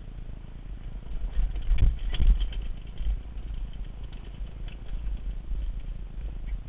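Mountain bike clattering and rattling over a rough dirt trail on a fast descent, with wind rumbling on the helmet-camera's microphone. Two sharp knocks come about two seconds in.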